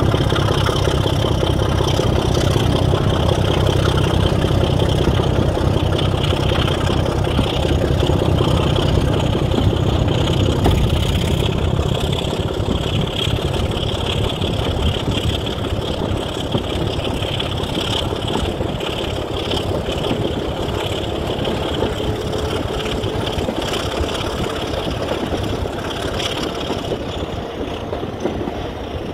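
Heavy diesel engine of a railway vehicle running steadily at idle. Its low rumble is strongest for the first ten seconds or so and then eases.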